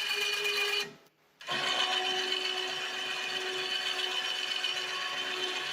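Badlands XR 2500 12-volt electric winch motor running with a steady whine as it pulls the sawmill by its cable, stopping about a second in and starting again half a second later.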